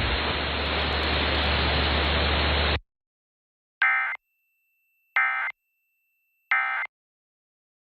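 Steady static hiss that cuts off suddenly about three seconds in, followed by the Emergency Alert System end-of-message signal: three short, identical buzzy data bursts about 1.3 s apart, marking the close of the alert.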